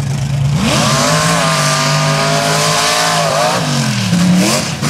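Mega truck engine revving hard. Its pitch climbs about half a second in, holds, then dips and rises again near the end, under a loud rushing noise.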